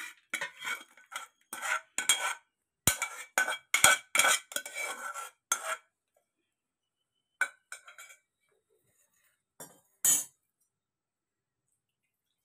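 Steel spoon scraping and clinking against a metal pot and a steel bowl as thick mashed greens are scooped out, a dense run of scrapes and knocks for about six seconds. A few separate clinks follow, the last about ten seconds in.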